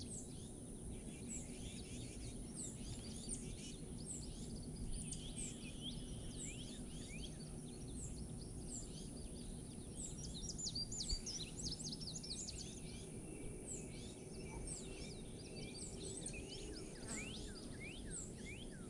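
Small birds chirping, many short quick calls scattered throughout, over a steady outdoor background hiss.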